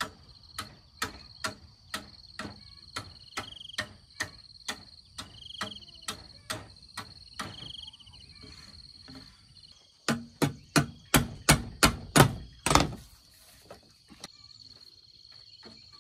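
Repeated sharp blows of a hand tool, about two a second for the first half, then after a short pause a faster, louder run of strikes that stops about three seconds before the end. A steady high insect drone runs underneath.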